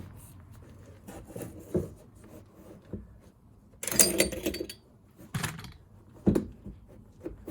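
Handling sounds of a panel or piece of carpet being worked into place: several short knocks and taps, with a louder rustling scrape about four seconds in.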